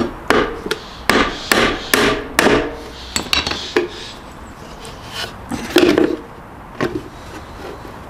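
Claw hammer driving a galvanised clout nail into treated timber board: about seven quick blows in the first two and a half seconds. Then lighter wooden knocks as the box is handled, with a single loud knock near six seconds and another a second later.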